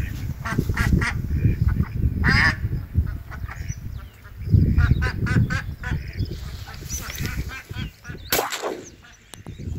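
Ducks quacking in quick runs of short, repeated calls, over a low rumble. One louder sweeping sound comes near the end.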